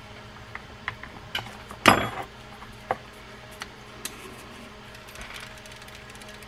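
A fishing reel and small hand tools being handled on a workbench: scattered light metal clicks and knocks, with one louder clatter about two seconds in.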